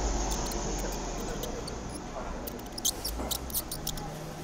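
A mouse in a wire cage nibbling on apple slices. About three seconds in there is a quick run of sharp, high clicks, over a low background hiss.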